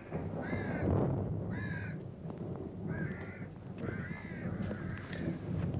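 Crow cawing about five times, each caw about half a second long and roughly a second apart, over a low rumble.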